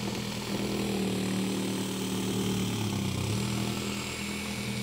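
Cordless drill/driver running steadily, its Phillips bit spinning in a Pozidriv screw head to strip it. The hard screw head resists and the bit wears down instead.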